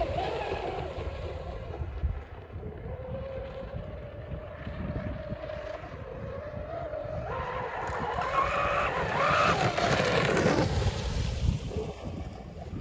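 Twin brushless electric motors of an RC catamaran whining at high speed as the boat blows over. The whine fades, then rises loudly and wavers about seven and a half seconds in, and falls away about three seconds later.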